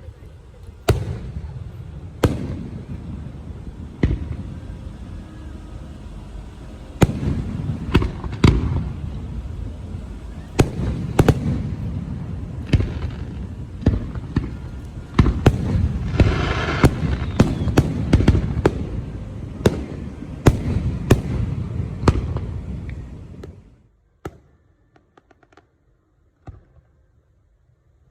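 Fireworks and firecrackers going off: a loud rushing, crackling spray with many sharp bangs scattered through it, dying away about 23 seconds in and leaving only a few faint pops.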